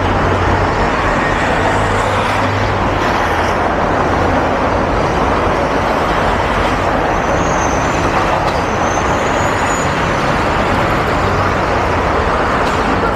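Steady traffic noise from a busy city avenue: buses and cars running by, with a low engine hum strongest in the first few seconds.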